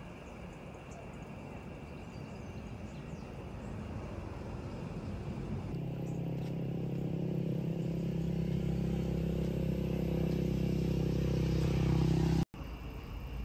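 A motor vehicle's engine humming steadily at one pitch and growing louder over several seconds, cut off abruptly near the end. Before it, only a steady outdoor noise haze.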